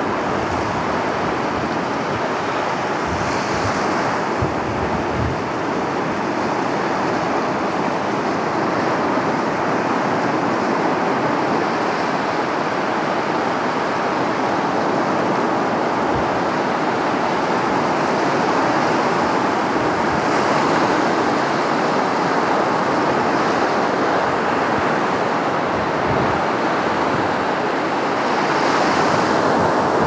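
Stormy sea surf breaking on a sandy beach: a steady wash of waves, with louder hissing surges now and then. Wind buffets the microphone in a few brief low thumps.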